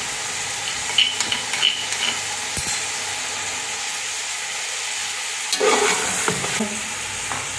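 Chicken pieces sizzling in hot oil in an aluminium pot, with ginger-garlic paste, chopped coriander and green chillies just added. There are a few light clicks of the metal slotted spoon early on. About five and a half seconds in, louder stirring noise as the spoon turns everything over.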